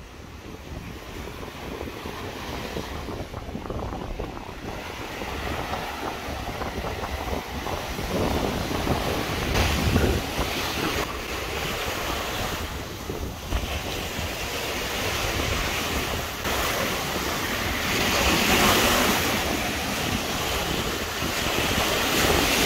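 Wind buffeting the microphone over the wash of waves on the shore, the gusts growing louder toward the end.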